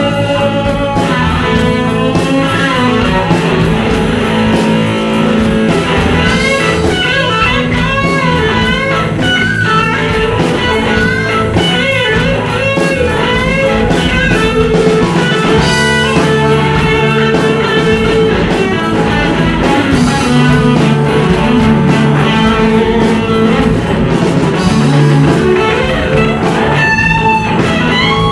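Live rock band music with a lead electric guitar solo on a Les Paul-style guitar: bending, sliding lead notes over steady bass and drums.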